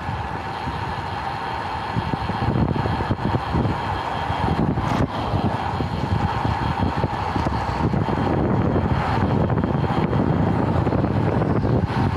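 Wind rushing over a handlebar-mounted action camera's microphone as a road bike rolls along at speed, with road and tyre rumble underneath. The noise is steady and heaviest in the low end, a little quieter for the first couple of seconds.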